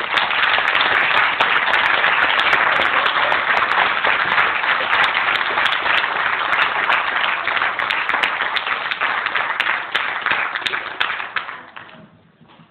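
Audience applauding: dense clapping that holds steady and then dies away near the end.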